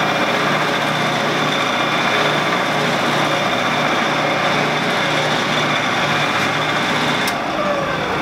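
Shopsmith running, spinning a long stainless steel rod that is being polished with a towel. It makes a steady whir with a regular pulsing hum. Near the end there is a click and the machine is switched off, and its pitch falls steadily as it winds down.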